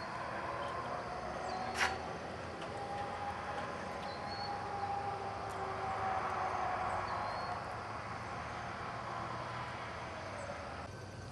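Outdoor ambience with a distant engine drone that swells and then fades. A single sharp click comes about two seconds in, and there are a few faint high chirps.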